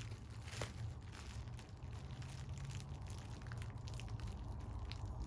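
Faint scattered clicks and rustles of LED wires and plastic parts being handled and pressed into a wire channel, over a steady low hum.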